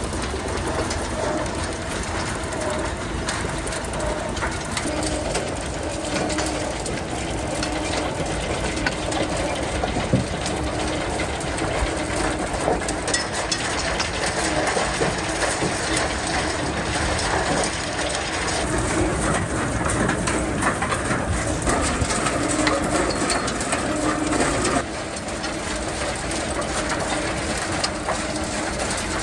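Machinery of a sawdust biomass-pellet plant running steadily, a dense mechanical din with a low hum in it; the level drops slightly about 25 seconds in.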